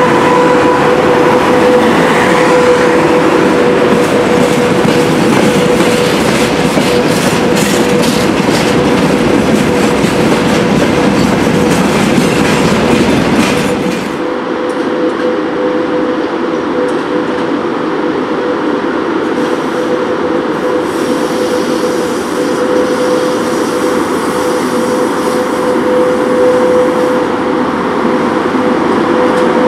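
VL80-series two-section AC electric freight locomotive and its train passing close, wheels clattering over rail joints under a steady electric hum. About halfway the sound drops to a quieter, more distant locomotive rolling in with its freight train.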